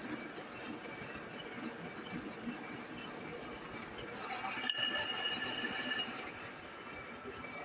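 Metal lathe running in a workshop, with a louder ringing metallic tone for about two seconds past the middle and a sharp click near five seconds in.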